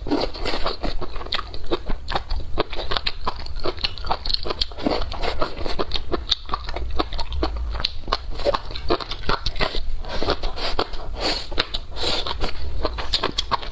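Close-miked biting and chewing of crunchy food: a dense, continuous run of sharp crunches.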